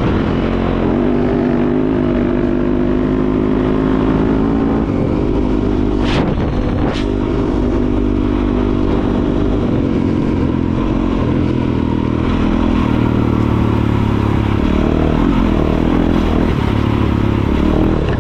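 Enduro dirt bike engine running under throttle on a wet dirt track, its pitch rising and falling with throttle and gear changes. Two sharp knocks come about six and seven seconds in.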